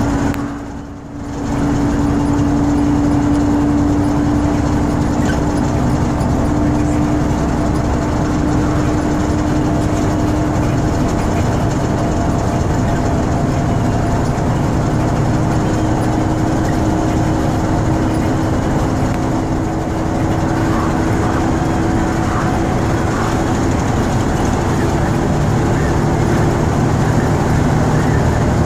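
Rába D10 six-cylinder diesel of an Ikarus 256.50 bus running under way, heard from inside with road and cabin rumble. It keeps a steady droning note that climbs slowly as the bus gathers speed. The sound dips briefly about a second in.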